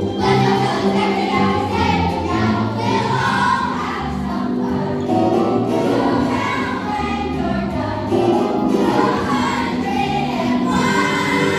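A children's chorus singing a show tune together over instrumental accompaniment.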